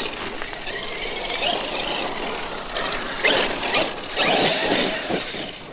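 Traxxas X-Maxx RC monster truck driving, its brushless electric motor whining and drivetrain gears whirring, with short rising whines as it speeds up and louder bursts about three and four seconds in.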